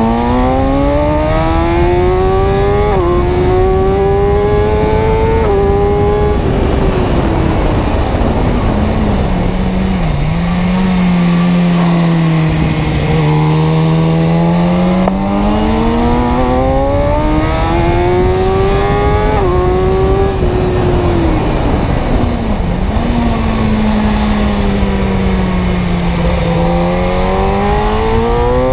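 Car engine revving up through the gears, its pitch climbing with brief drops at each upshift about 3 and 5.5 seconds in, then falling as it slows. Partway through it climbs through the gears again, falls, jumps up once briefly, and starts rising again near the end.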